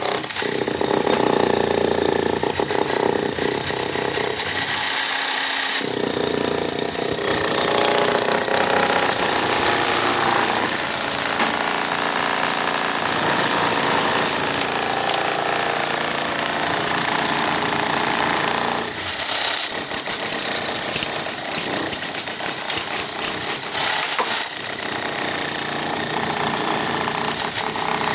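Bosch GSH 11 E electric demolition hammer chiselling steadily through a reinforced concrete slab, the rapid hammer blows running continuously with the crunch of breaking concrete.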